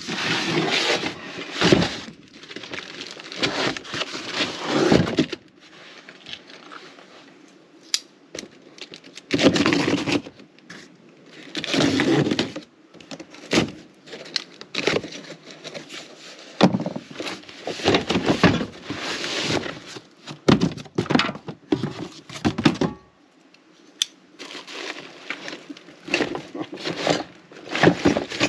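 A cardboard box being torn open and its packaging handled: irregular bursts of ripping cardboard and crinkling plastic wrap, with a few sharp clicks, as a boxed swivel trailer jack is unpacked.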